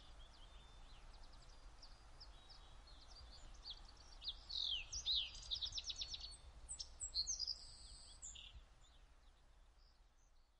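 Faint birdsong ambience: small birds chirping in quick runs of short calls over a low steady background rumble, busiest in the middle and fading out near the end.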